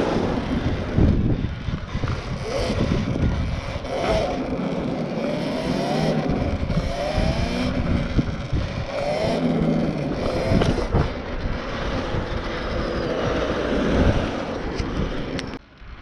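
Wind buffeting the microphone while riding an Apollo RFN electric dirt bike, with the motor's whine gliding up and down with the throttle. The noise drops away suddenly near the end.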